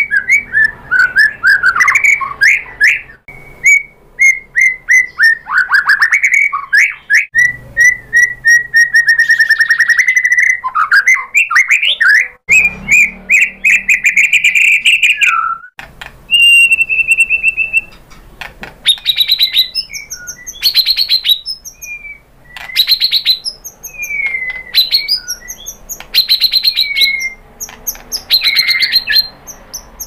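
White-rumped shama singing a long, varied song: loud whistled notes, sliding notes, rapid trills and dry rattling phrases, broken by a few short pauses.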